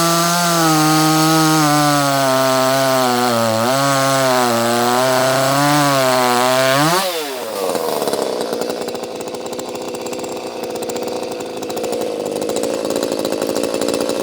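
Ported Echo CS-310 chainsaw on an 18-inch bar cutting through a thick oak stump at full throttle, its engine pitch dipping and recovering under load. About seven seconds in the pitch shoots up as the chain frees from the cut, and the saw then runs on more quietly.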